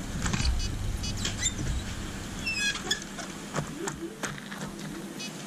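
Lakeside outdoor ambience: a low, uneven rumble with scattered faint clicks and a few high bird chirps, including a short run of falling chirps about two and a half seconds in.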